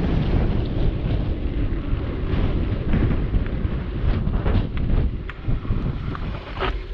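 Wind buffeting the microphone of a mountain bike rolling over a gravel dirt trail, with tyres crunching and scattered short rattles and clicks from the bike.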